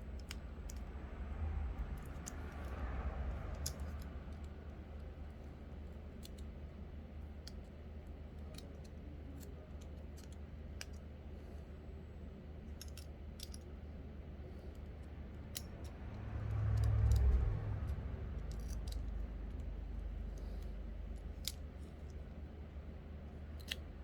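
Scattered light clicks and handling noises from small repair tools and a smartphone frame being worked on, over a steady low rumble.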